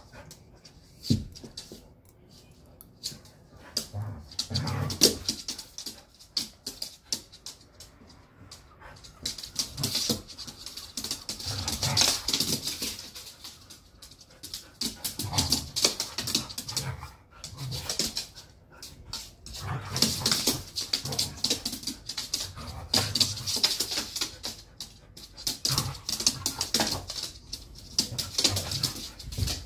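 Two dogs play-fighting on a hard floor: bouts of low growls and whimpers, with scuffling and claws clicking and scrabbling on the floor between them.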